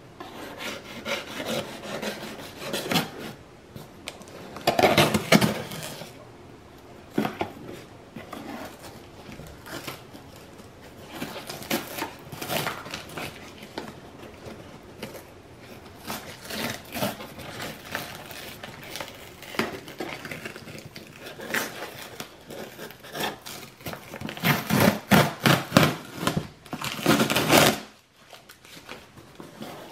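Kitchen knife scraping and sawing through packing tape and cardboard along a box seam, mixed with hands rubbing on the cardboard. A run of quick back-and-forth sawing strokes comes near the end, then stops.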